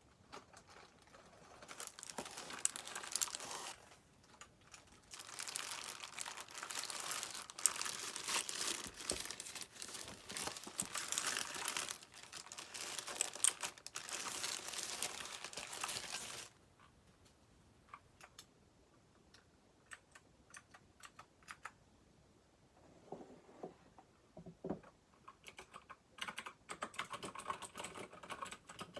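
Packaging for a Keychron K12 mechanical keyboard being handled, with dense crinkling and rustling for most of the first half. After that come scattered single clicks, and near the end a quicker run of clicks that sounds like keys being pressed.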